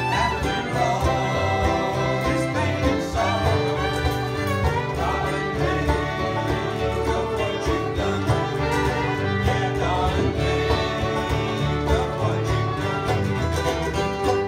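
Bluegrass band playing live: two fiddles bowing over banjo, mandolin, acoustic guitar and upright bass.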